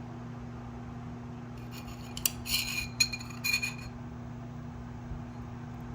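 A handful of light metallic clinks and taps, a small metal tool knocking on small metal parts, bunched over about two seconds around the middle. A steady low electrical hum runs underneath.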